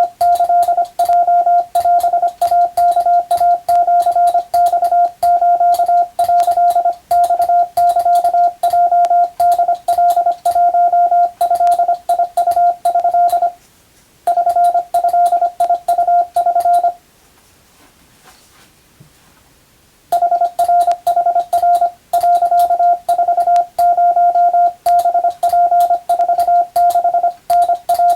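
Morse code (CW) sent at practice speed: a single steady mid-pitched tone keyed rapidly on and off in dots and dashes, with faint clicks along with the keying. The sending stops briefly about halfway through, then for about three seconds, before resuming.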